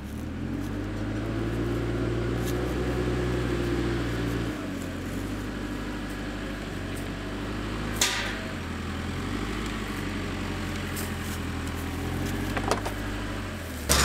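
Backhoe loader's diesel engine running as the machine drives up. Its pitch rises a little over the first few seconds, then settles lower and steady about four and a half seconds in. A single sharp click comes about eight seconds in.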